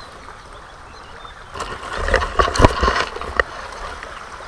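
A burst of close rustling and sharp knocks lasting about two seconds, starting about a second and a half in: handling right at the microphone as the angler reaches toward the camera. A faint wash of river water can be heard before and after it.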